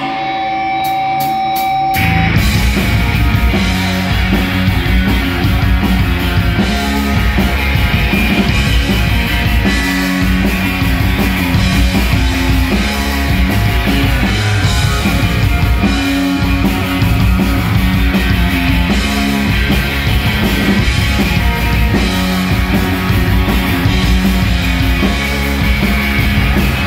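A rock band playing live: distorted electric guitar, bass guitar and drum kit. It opens with a single held note and four sharp clicks, and the full band comes in loud about two seconds in.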